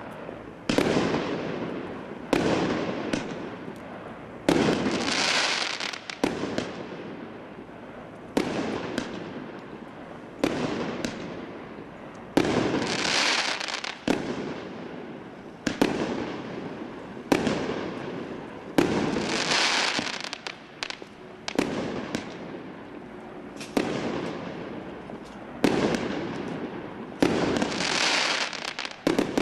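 A 19-shot consumer firework cake (Sn-19k) firing its shells one after another, a sharp report about every one and a half to two seconds. Each report trails off over about a second, and some carry a hissing, crackling tail from the aster bursts.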